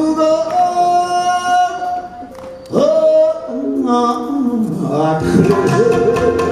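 A man singing long held notes that bend in pitch, accompanied by a Tsugaru shamisen. There is a short lull about two seconds in before the voice comes back loud, and from about five seconds in the shamisen plays a quick, busy run of plucked notes.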